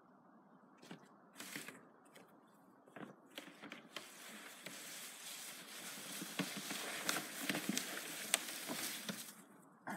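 A sled sliding down through dry weeds and brush, a rustling, crackling scrape full of small snaps that grows louder as it comes closer and falls away shortly before the end.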